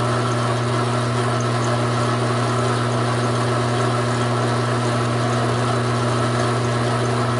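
Taig micro lathe running under load with a steady hum while a parting tool is fed into a 1-inch bar of 1018 steel. The motor is short of torque for the cut and is starting to bog down and stall.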